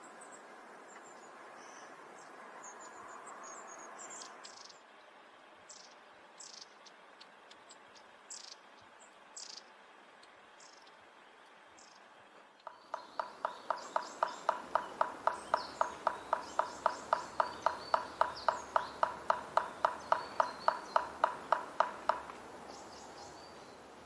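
Long-tailed tits (Hokkaido race, shima-enaga) giving thin, high-pitched, short contact calls, scattered and faint. About halfway through, a louder, even series of pulses takes over, about four a second, with thin high chirps above it, and stops near the end.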